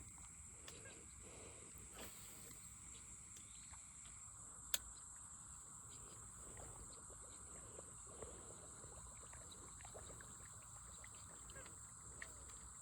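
Near silence: quiet outdoor ambience with a steady faint high-pitched hum, broken by one sharp click about five seconds in.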